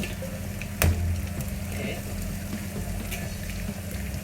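Food frying quietly in a wok over a steady low hum, with faint scattered crackles and one sharp knock about a second in.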